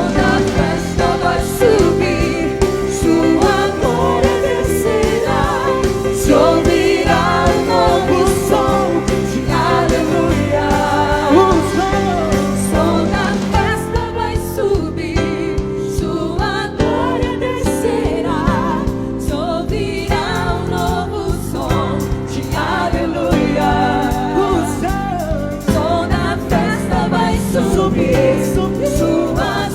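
A church praise band and singers performing a gospel worship song, several voices singing over drums and bass.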